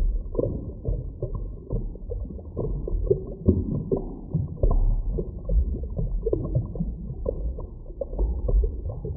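A small stream's flowing water recorded underwater: a muffled low rumbling wash with irregular soft clicks and pops throughout.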